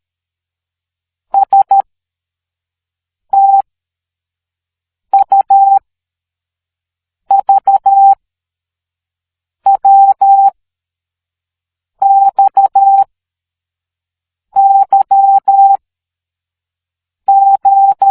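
Morse code sent as a steady beep tone of about 800 Hz, short dits and longer dahs in eight separate groups about two seconds apart, each group the code for one letter of the alphabet, with silence between the groups.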